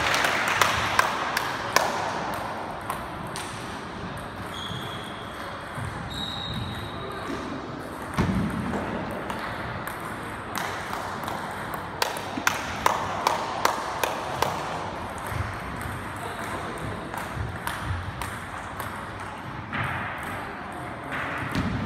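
Table tennis ball clicking sharply off bats and table during rallies in a large hall. There is a quick run of hits at the start and another from about twelve to eighteen seconds in, with quieter gaps between points.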